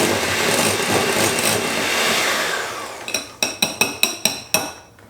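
Electric mixer beating cream cheese and sour cream, a steady whirr that winds down about two and a half seconds in. It is followed by about seven quick ringing metallic taps, like beaters being knocked against the bowl.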